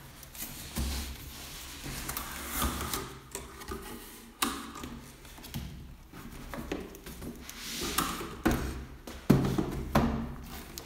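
Cardboard packaging being handled: a shipping box turned over and its flaps opened, an inner box lifted out and set down, with scraping, rustling and a run of irregular knocks and taps, the sharpest near the end.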